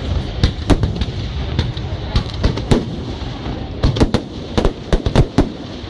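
Fireworks display: irregular sharp bangs of bursting shells, coming thicker in a quick cluster about four seconds in, over a steady background rumble.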